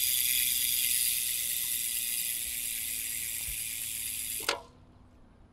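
Rear freehub of an Entity WR500 road wheel buzzing as the wheel coasts freely; the buzz fades slowly as the wheel spins down. It ends with one sharp click about four and a half seconds in.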